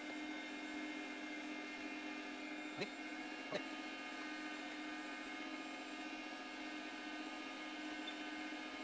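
Electric meat grinder's motor running with a steady hum while it pushes ground venison through the stuffing tube into a sausage casing. Two short knocks come about three seconds in.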